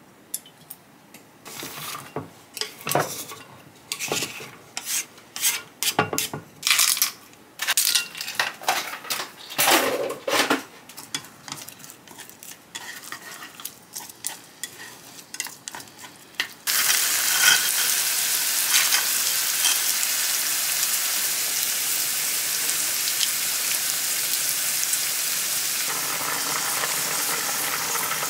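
Kitchen utensils and dishes clattering and scraping in short separate knocks, then, about two-thirds through, food starts sizzling in a hot frying pan with a sudden loud steady hiss.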